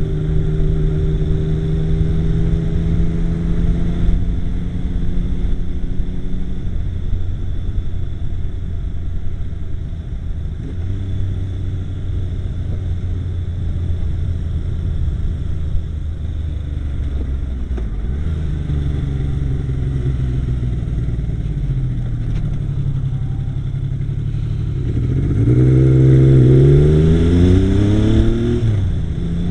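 Yamaha XS850 three-cylinder engine running, its pitch sinking, then rising and falling again, with the loudest rev-up a few seconds before the end, after which it drops back. The owner suspects it misfires at times while riding.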